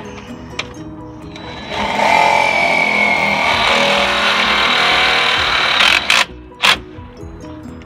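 Cordless DeWalt drill/driver runs steadily with a whine for about four seconds, driving a screw into the sheet-metal mount of an economizer damper actuator. It then gives two short bursts near the end as the screw is snugged down.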